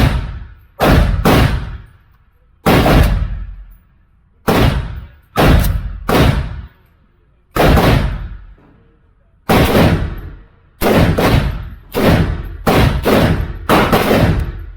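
An AR-15-pattern pistol chambered in 7.62x39 firing about eighteen loud semi-automatic shots at an uneven pace. Some come singly with pauses of a second or two, and there is a quick run of six near the end. Each shot rings out with a short echo.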